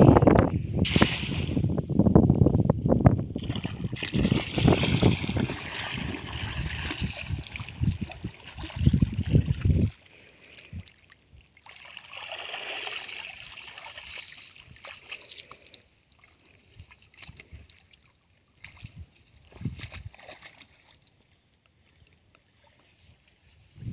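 Water splashing and sloshing as a cast net is thrown and hauled in by someone wading in shallow muddy water. A heavy low rumble covers the first ten seconds and cuts off suddenly; after that only quieter, scattered splashes remain.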